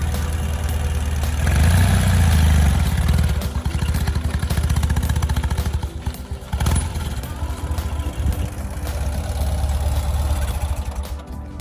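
Ural sidecar motorcycle's flat-twin engine running as the outfit rides down a slope. It swells for a couple of seconds near the start, dips briefly about halfway, and fades away near the end.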